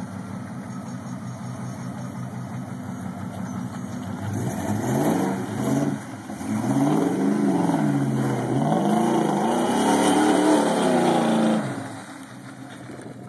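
Chevy pickup engine idling, then revved hard several times as the truck spins through mud, its pitch rising and falling about four times before it fades as the truck pulls away near the end.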